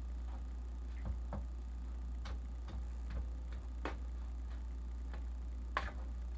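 Light, irregular clicks and knocks of a utensil against a mixing bowl as banana bread batter is mixed by hand, about one every half second, over a steady low hum.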